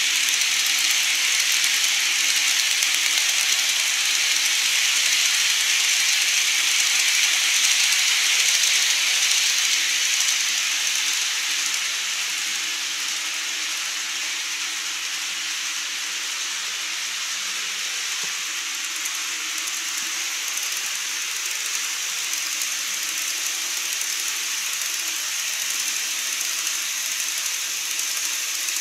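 TOMIX N-gauge model train running on its track: a steady, high hissing running noise. It is louder for about the first ten seconds, then a little quieter.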